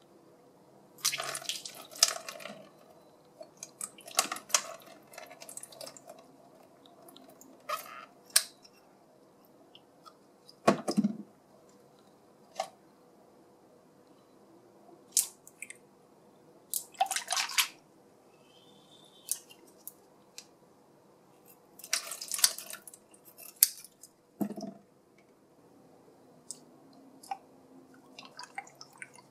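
Scissors snipping through the rubbery skin of a water-filled squeeze toy, with liquid dripping and splashing into a plastic bowl and wet squishing as the toy is squeezed. The sounds come in short bursts with quiet gaps between them, and there are two dull knocks.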